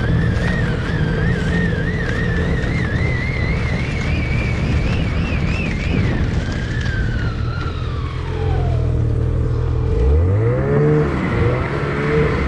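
Snowmobile engine running under way, with a high whine that wavers and climbs for about the first six seconds, then glides down as the sled slows. About ten seconds in the engine revs up sharply, followed by a few more throttle blips.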